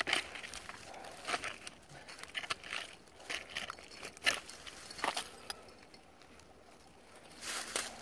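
Gloved hand scraping and raking loose dirt out of a hole in an earth bank: irregular scratches and crumbly rustles, with a lull late on before another flurry of scraping near the end.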